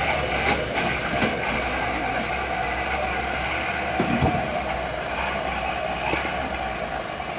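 Diesel engine running steadily, with a few knocks of stones being thrown into a dump truck's bed; the loudest knock comes a little after four seconds in.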